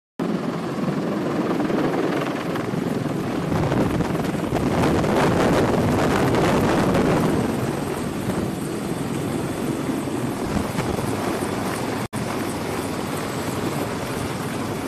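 CH-53E Super Stallion heavy-lift helicopter hovering low overhead: dense, continuous rotor and turbine noise, with rotor downwash blowing across the microphone. It swells louder for a few seconds in the middle and cuts out for an instant about three seconds before the end.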